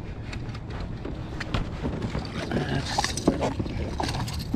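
A small bass is reeled in and lifted aboard a plastic pedal kayak: scattered knocks, clicks and splashy handling noises over wind on the microphone.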